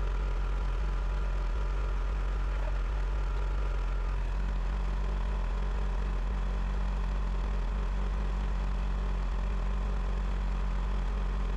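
Tractor engine running at a steady speed, a constant low drone with no change in pitch.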